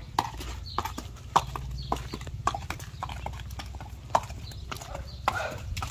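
Horse's hooves clip-clopping on wet stone paving as it is led at a walk: an irregular series of sharp knocks, over a low steady rumble.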